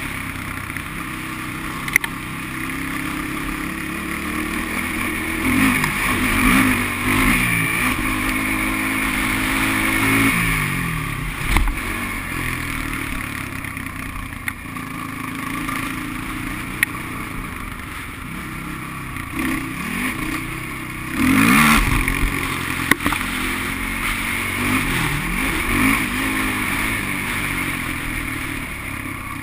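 Sport quad's engine revving up and down as it is ridden around a dirt motocross track, recorded onboard, with the pitch climbing and dropping through each corner. Several sharp knocks, with a loud surge of noise about two-thirds of the way through.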